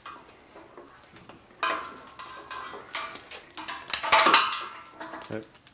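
Metal parts clanking and rattling as a magneto, its ignition harness attached, is worked loose and lifted off a Rolls-Royce Meteor V12 engine. The clatter comes in several bursts, starting sharply about a second and a half in and loudest about four seconds in.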